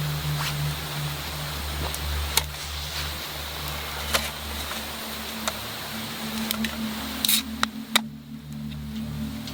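Wood campfire crackling, with irregular sharp pops and snaps over a steady low hum.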